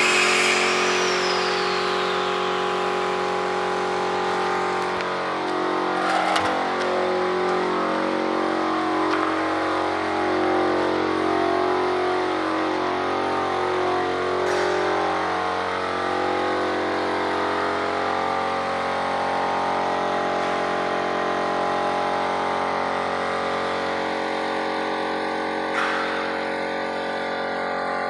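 A motor running steadily, with a constant engine-like hum that wavers for a while in the middle.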